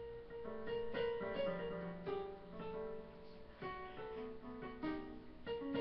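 Electronic keyboard sounding a string of single notes struck at uneven intervals, some ringing on and overlapping, as a dog's paws press the keys.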